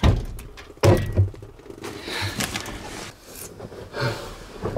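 A few dull thunks and knocks inside a pickup bed under a camper shell: one at the start, two close together about a second in, and another near four seconds in, with shuffling and rustling between them as gear is moved about.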